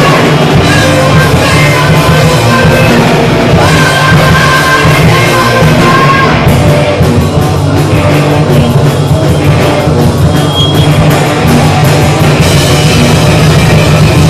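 Live punk rock band playing at high volume: electric guitars, bass and drum kit, with a run of rapid cymbal hits through the middle.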